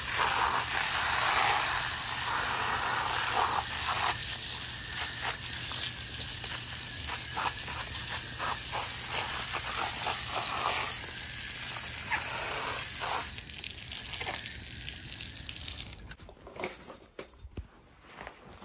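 Garden hose spray nozzle jetting water onto a concrete pad, spattering over a pair of rubber slides and bare feet as they are rinsed off. The spray stops suddenly near the end.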